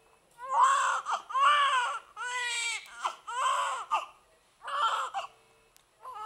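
Newborn baby crying just after birth, five wailing cries each about a second long with short gaps for breath between them.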